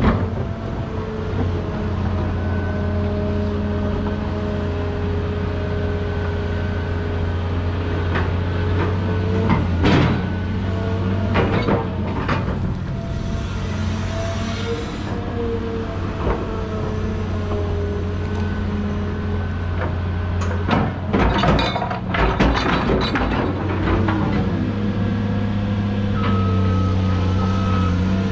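Caterpillar 330 excavator's diesel engine running steadily while it works, with sharp metallic clanks and knocks scattered through, clustered about a third of the way in and again later. Near the end a reversing alarm starts beeping.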